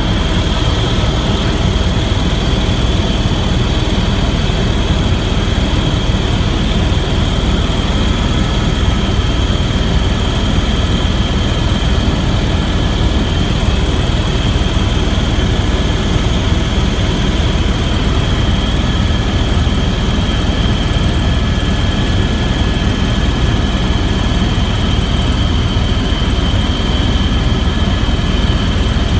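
Aircraft engine and airflow noise heard inside the cabin in flight: a loud, steady low drone with a constant high whine.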